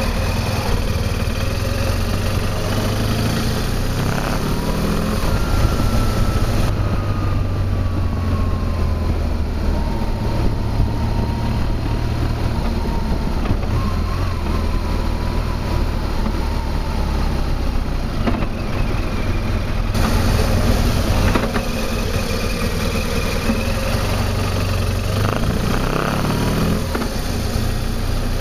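BMW R1200 GS boxer-twin motorcycle engine running while riding, its note rising as the bike pulls away about four seconds in and again near the end.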